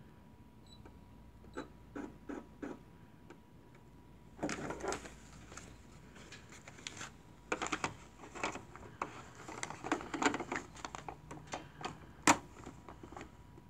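Handling sounds at a Brother SE400 embroidery machine: a short touchscreen beep near the start, then spells of fabric rustling and small plastic clicks as the hooped fabric is set under the needle, with one sharp click near the end. The machine is not yet stitching.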